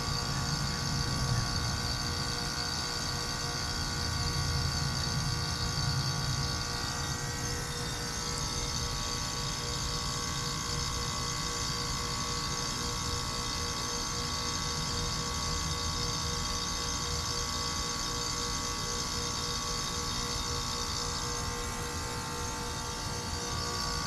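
Lennox Merit heat pump outdoor unit running: a steady machine hum with several high, unwavering tones. A low rumble eases off about seven seconds in.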